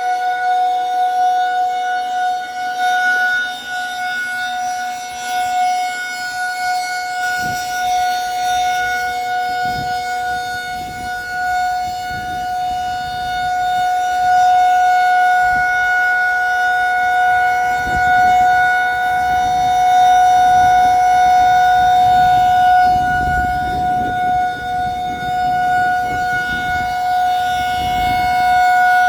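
Federal Signal 2001-SRN rotating outdoor warning siren sounding a steady one-minute alert tone: one unchanging pitch whose loudness swells and fades slowly as the head turns.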